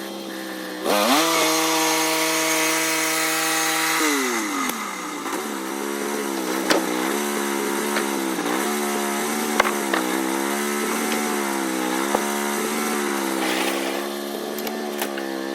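Norwood portable band sawmill's gasoline engine revs up from idle about a second in, then drops and labours with a wavering pitch as the band blade saws through oak boards. Small sharp ticks sound throughout the cut.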